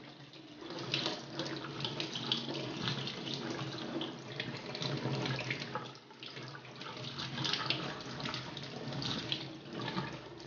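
Kitchen faucet running into a stainless steel sink while hands rub and rinse a gutted mackerel half under the stream, washing out the remaining innards. The water splashes unevenly as the fish is turned and scrubbed.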